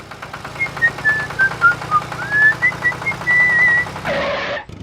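A whistled tune of short notes that dips and climbs back, over the fast, even rattle of a small motor. A short louder blast sounds about four seconds in.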